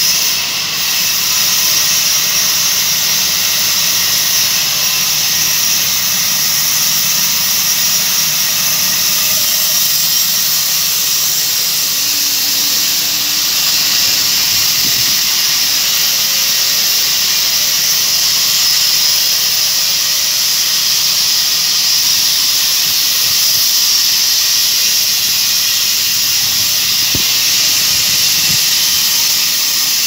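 Sawmill machinery running steadily: a loud, even hiss with a low hum beneath it that fades partway through.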